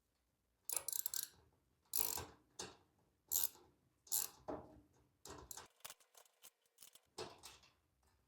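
Ratchet wrench clicking in about ten short, irregular strokes, tightening a fastener that was first threaded on by hand.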